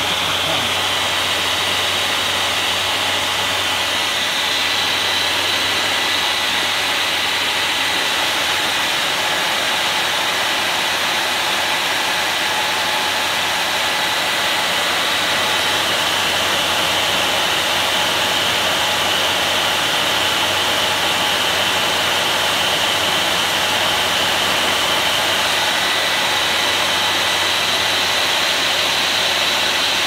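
Diesel air heater running with its fan driven flat out, at about 5,700 rpm: a loud, steady blower roar with a thin, steady high whine.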